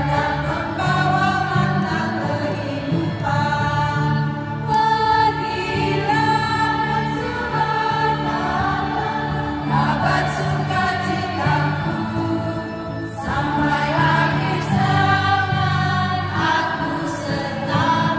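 Women's church choir singing a hymn in Indonesian, several voices together in steady phrases, over long held low accompaniment notes.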